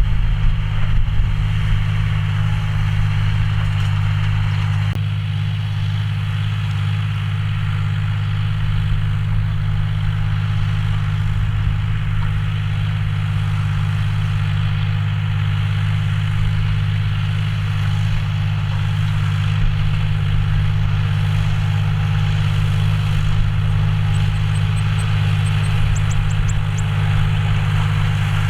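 John Deere 5045D tractor's three-cylinder diesel engine running steadily at an even speed.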